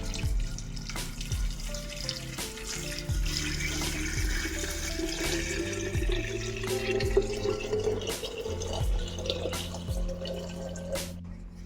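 Liquid poured steadily into a container, its pitch rising as the container fills, over background music with a steady beat.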